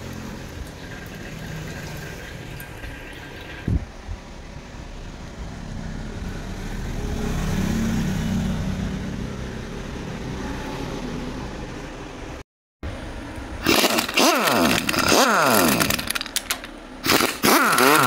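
Engine oil from a Royal Enfield Classic 350 pouring steadily out of the sump drain into a metal dish. After a break, a socket wrench on the magneto-cover bolts gives a fast, louder ratcheting clatter for the last few seconds.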